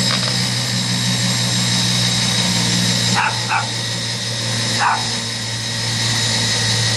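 Small dog giving short yips: two quick ones about three seconds in and another near five seconds, over a steady low machine hum.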